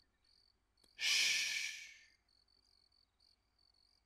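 Crickets chirping in a faint, regular pulse, with a loud breathy hiss from a voice, like a hush or exhale, starting abruptly about a second in and fading out within a second.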